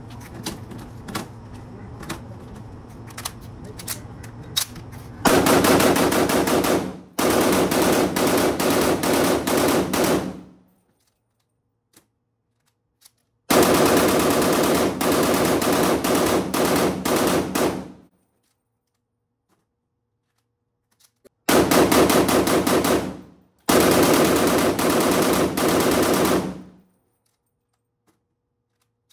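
POF CW39 rifle firing long full-auto bursts, five in all, each a rapid string of shots lasting two to four seconds with short silent pauses between. Before the first burst, about five seconds in, there are only scattered faint clicks.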